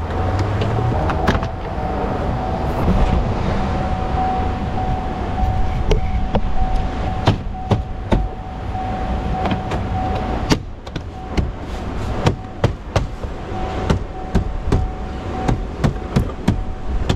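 Plastic door trim panel of a Chevrolet Volt's front passenger door being hung and pressed onto the door: a run of sharp clicks and knocks from the panel and its fasteners, coming thicker and quicker over the last several seconds. Under it run a steady low rumble and a thin steady whine.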